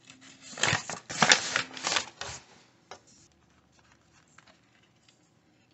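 Paper flour bag rustling and crinkling loudly for about two seconds as it is handled, followed by a single light tap.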